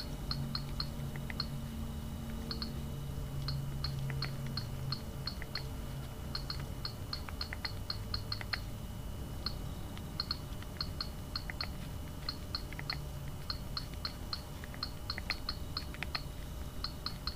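Thumbs typing on the Samsung Reclaim's slide-out QWERTY keypad: a run of small, quick key clicks at an uneven pace, a few a second.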